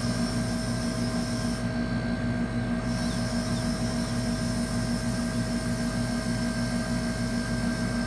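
Split air conditioner's outdoor unit running, a steady hum from its compressor and fan, while the system sits low on R-22 refrigerant.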